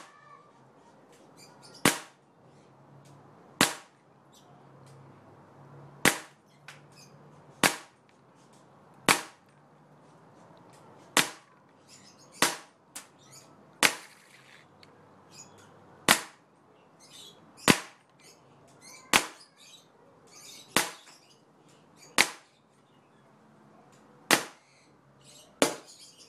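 BB gun firing repeatedly: about sixteen sharp cracks, roughly one every second and a half, with fainter ticks between them.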